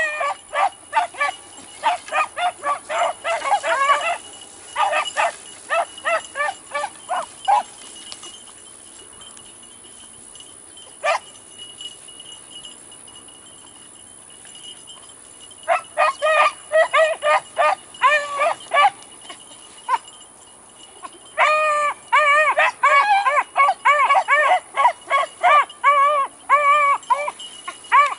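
A pack of beagles baying in quick repeated cries while running a rabbit's trail. The calls come in bursts: a run of cries, a lull broken by a single call, then the pack opening up again and crying steadily near the end.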